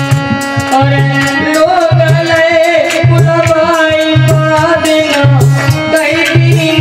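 A man sings a Hindi devotional folk song over harmonium and a steady drum beat. The harmonium holds chords and the voice comes in about a second in, with a wavering, ornamented melody.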